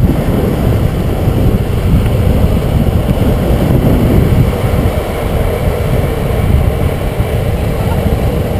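Longboard urethane wheels rolling fast down rough asphalt, a steady loud low rumble, with wind buffeting the board-mounted microphone.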